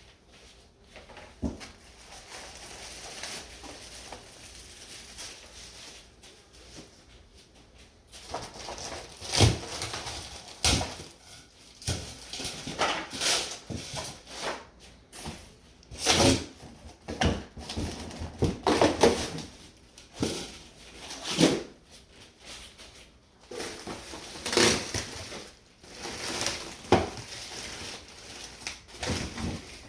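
Irregular knocks, clunks and clatter with rustling, as treadmill parts and packaging are handled and moved about during unboxing and assembly. The first several seconds hold only a soft rustle before the knocks begin.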